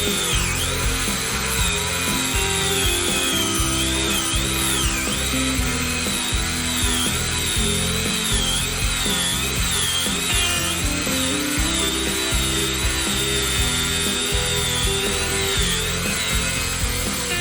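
Parkside PWSA 20-Li B3 cordless angle grinder running under load, its high whine dipping and recovering again and again as the disc bites into the work, then cutting off near the end. Background music with a steady beat plays underneath.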